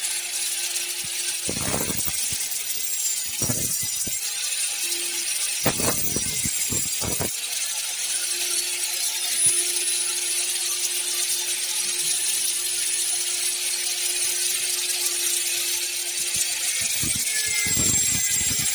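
Handheld electric angle grinder running against a metal pipe: a continuous high, hissing grind with a steady motor tone. The motor tone sags near the end, and there are a few short knocks in the first several seconds.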